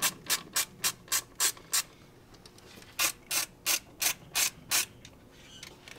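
Hand ratchet with a T40 Torx socket clicking as it is swung back and forth to undo the idle control valve bracket bolts. There are two quick runs of even clicks, about four a second, with a short pause between them.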